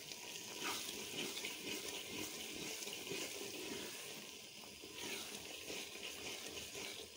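Thick black-eyed pea dal sizzling steadily in hot oil in a pot while it is stirred with a wooden spoon: the bhuna frying stage, with cumin seeds just mixed in.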